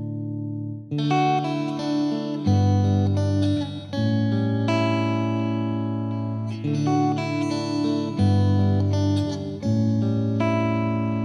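Instrumental music on guitar: plucked and strummed chords ringing out, the bass note changing every second or two.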